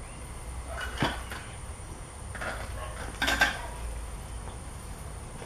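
A cruiser bicycle being handled and moved, giving a few short metallic knocks and rattles, the loudest about three seconds in. A steady low rumble runs underneath.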